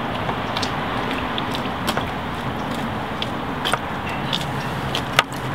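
Steady rushing background noise with a few light clicks and one sharp click about five seconds in; a low steady hum comes in near the end.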